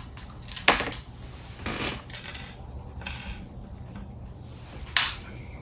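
Light clicks and clinks of small fishing tackle being picked out of a plastic tackle box and handled, with two sharper knocks, one under a second in and one near the end.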